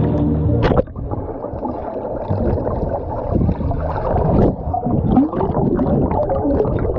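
Water gurgling and sloshing close to the microphone, with muffled, wavering tones that rise and fall.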